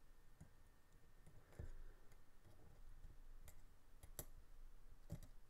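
A handful of faint, scattered clicks from a small screwdriver bit and tiny Torx pocket-clip screws being handled against a folding knife's aluminum handle scale, over quiet room tone.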